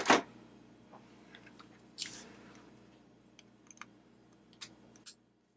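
Small plastic switch box and tools being handled on a work mat: a sharp click at the start, a brief scrape about two seconds in, then a few light ticks and taps.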